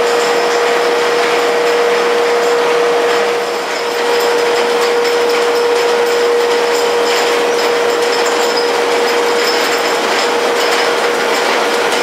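Old belt-driven machinery running off an overhead line shaft, with flat belts over pulleys and a large rotating drum: a steady mechanical clatter and rattle over a constant hum on one pitch.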